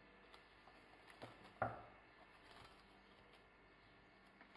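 Faint crinkle of plastic cling film being pressed into a small glass bowl, with one light tap about a second and a half in.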